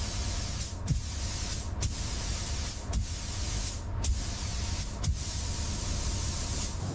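A high-pressure spray hissing steadily, broken by brief gaps about once a second, over a low hum.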